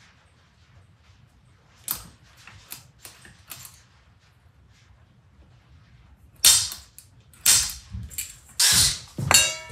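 Spring-loaded automatic center punch snapping against a metal colander ring to mark drill holes: a few faint ticks of handling, then several sharp snaps in the last three seconds, the last one leaving the metal ringing briefly.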